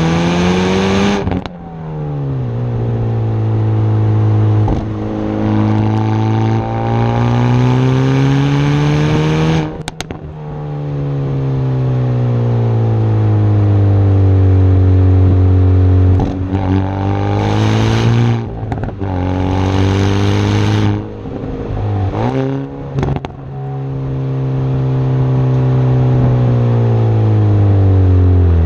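Hyundai i30 N Performance's turbocharged 2.0-litre four-cylinder engine and exhaust pulling hard, the pitch climbing and then dropping sharply at gear changes, several times over. A few sharp cracks from the exhaust come in between.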